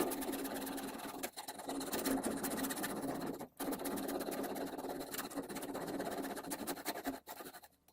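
A PVC piece being cut with a steady grinding, sawing noise, trimmed a little shorter so it fits. The cutting breaks off briefly about three and a half seconds in, then carries on.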